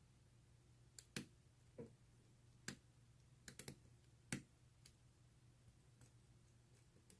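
Lock pick working the pin tumblers of a five-pin CISA 220/40 brass padlock: about ten sharp, irregularly spaced clicks, a few of them close together around the middle, as the pins are set one by one.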